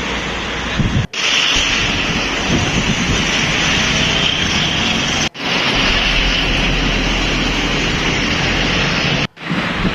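Loud, steady rushing noise of wind on the microphone over outdoor ambience. It drops out briefly three times where the footage is cut.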